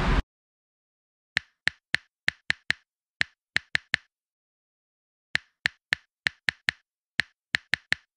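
About twenty short, sharp clicks in four quick runs against dead silence, an added clicking sound effect like typing. The street sound cuts off just at the start.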